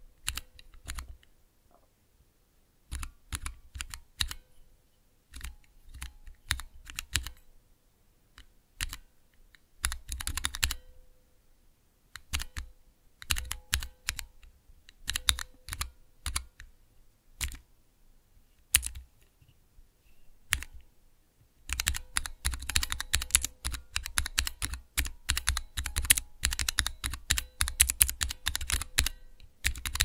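Typing on a Cherry MX mechanical keyboard: short bursts of keystrokes with pauses between them, then continuous fast typing from about 21 seconds in.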